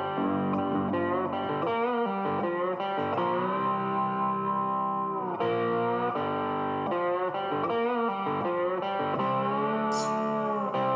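Background music led by guitar, with long held notes that bend and slide in pitch.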